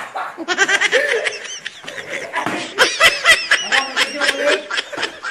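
People laughing in quick, repeated bursts of high-pitched giggling, loudest about three seconds in.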